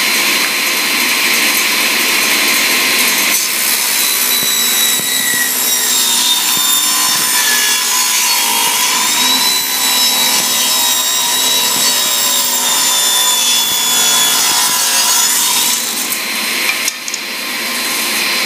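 Jet CTAS-10 cabinet table saw ripping a 3/4-inch cherry board. Once the board meets the blade, about a quarter of the way in, the blade's whine sinks in pitch as the saw slows under load, then eases near the end as the cut finishes. This bogging down happens on every cut, and the owner cannot yet say whether the motor, arbor, capacitors, magnetic starter or switch is to blame.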